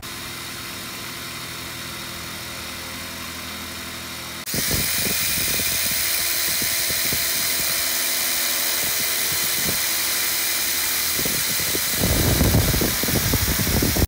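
Makita cordless impact driver with a 4 mm steel drill bit, drilling an air hole through a thin steel fire-pit plate under firm pressure. It runs steadily, then about four and a half seconds in it turns suddenly louder and harsher with irregular clicks. Near the end it gets louder again and then cuts off.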